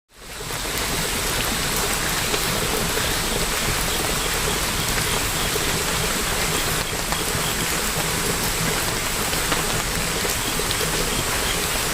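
Steady rainfall, fading in over the first half second, with scattered individual drops ticking.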